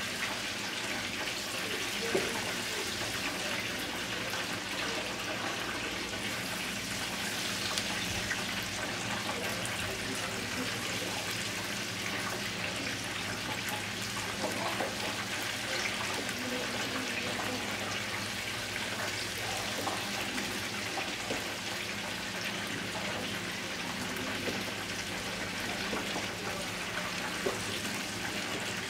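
Duck wings deep-frying in hot oil, a steady sizzle with a low hum beneath and a few small knocks.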